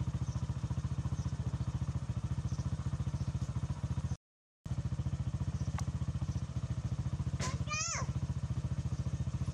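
A small engine running steadily with a fast, even low throb; the sound drops out completely for about half a second just after four seconds in. A high-pitched cry rises and falls about three quarters of the way through.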